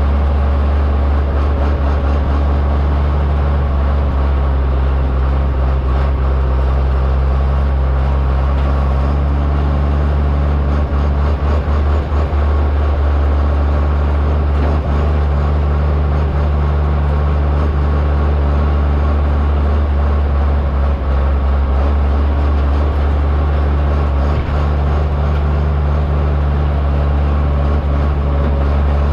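1973 John Deere 4430 tractor's six-cylinder diesel engine running steadily while pulling a loaded grain trailer.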